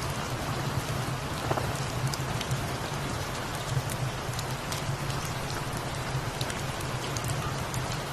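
Steady rain, with a low steady hum beneath it and scattered faint ticks.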